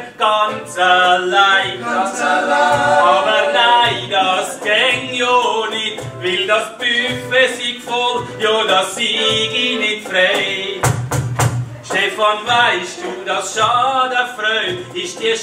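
A group of voices singing a song together, held sung notes throughout, with a short low thump about eleven seconds in.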